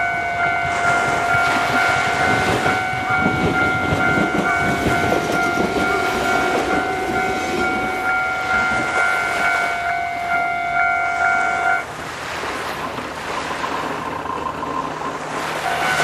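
Japanese railway level-crossing warning bell ringing its steady, repeating electronic chime over a train's rumble. The bell cuts off suddenly about three-quarters of the way through and starts again just before the end.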